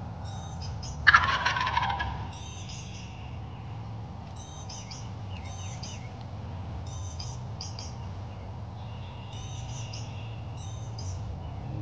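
A wild turkey tom gobbles once, loud, about a second in: a quick rattling call that drops in pitch at its end. Small birds chirp faintly throughout.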